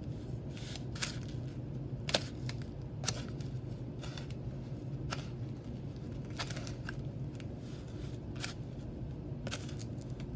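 Egg-coated chicken pieces dredged through dry breadcrumbs: scattered soft rustles and crunches, about ten over the stretch, over a steady low hum.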